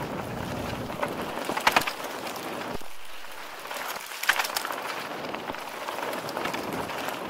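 Mountain bike rolling downhill over rough trail: steady tyre and wind noise, with scattered knocks and rattles from the bike over bumps.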